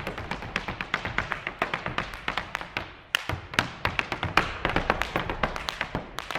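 Irish dance hard shoes striking a floor in a fast run of sharp taps, with a short lull about three seconds in before the taps pick up again.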